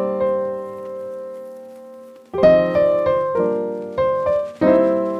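Slow piano music: a chord rings and fades for about two seconds, then new chords are struck roughly once a second.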